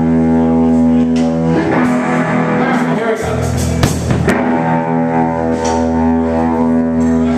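Freshly restrung electric guitar played through an amplifier. A chord rings long and steady and is struck again about one and a half seconds in and again about four seconds in.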